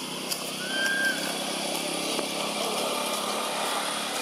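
An engine running steadily, a low mechanical hum, with one short, high chirp about a second in.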